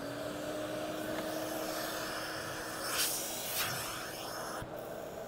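Vacuum motor of a portable carpet spotter/extractor running, a steady whining hum with a rush of suction air. There are two brief louder whooshes of air about three seconds in as the clear hand tool is worked on the carpet, and a small knock near the end.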